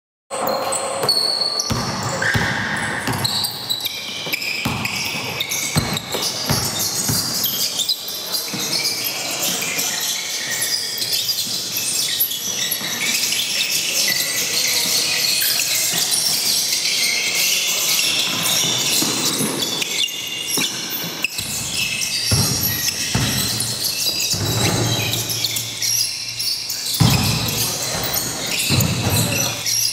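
A group making a deliberate racket in a gym hall: a loud, continuous din with many sharp knocks and bangs, echoing in the large room.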